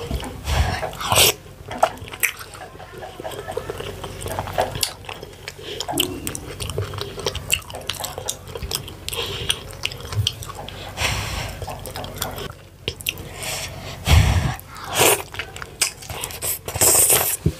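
Chewing and eating sounds of fufu with ogbono and ewedu soup: a steady run of irregular clicks and smacks from the mouth.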